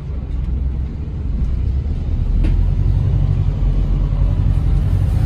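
Low, steady rumble of a Volvo B5TL / Wright Gemini 3 double-decker bus's engine and running gear, heard from inside the lower deck. It grows louder about two seconds in, and there is a faint click shortly after.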